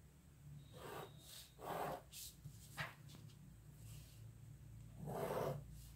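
A few faint, short breaths puffing close to the microphone, with light scrapes of a ruler and pen on paper between them.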